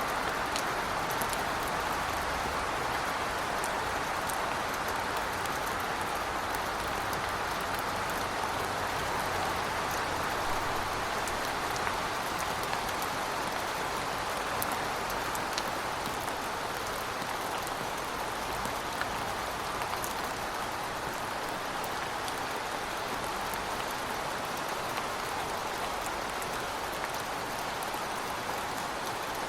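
Heavy rain falling steadily, with scattered sharp drop ticks over an even hiss. A low rumble runs under it for about the first half, then fades.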